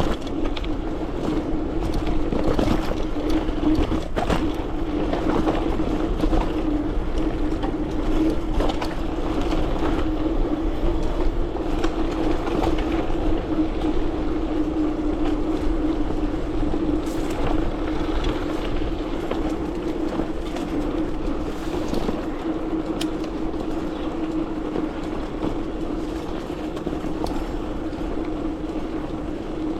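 A bike riding along a trail: a steady hum with a noisy wash and frequent small rattles and knocks from the rough ground.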